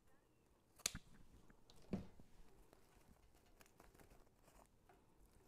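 Faint craft handling: one sharp snip about a second in as cutters cut through an artificial greenery stem, then a softer knock near two seconds, and quiet rustling of greenery after.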